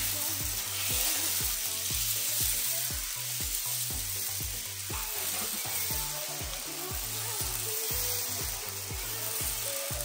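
Dosa batter sizzling on a hot, lightly oiled pan, a steady frying hiss. Soft background music with a steady beat plays underneath.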